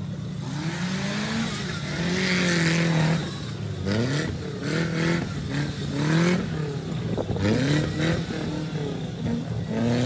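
Modified Maruti Suzuki Gypsy 4x4's engine revving up and down in repeated bursts as it crawls over rough off-road ground, the pitch rising and falling about once a second.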